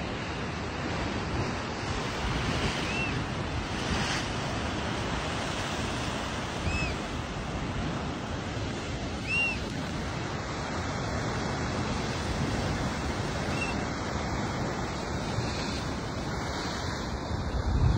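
Pacific surf breaking and washing over shore rocks: a steady rushing wash of waves. Three brief high chirps come through in the first half.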